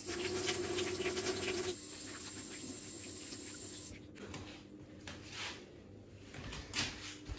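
Water running from a kitchen tap into a stainless-steel sink as hands are washed under it. It drops away about two seconds in, leaving quieter rubbing and handling noises.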